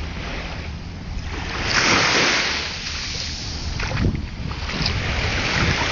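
Small sea waves lapping and washing at the shoreline, one wash swelling louder about two seconds in, with wind rumbling on the microphone.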